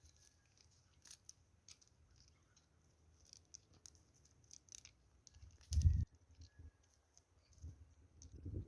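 Small stones for a slingshot being picked up and handled: faint scattered clicks and ticks, with one louder dull thump about six seconds in.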